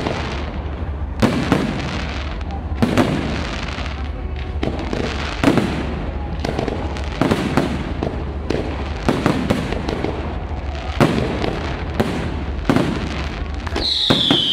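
Fireworks display: aerial shells bursting overhead in a run of sharp bangs at irregular intervals, about one a second or faster. Near the end a whistling firework gives a falling whistle.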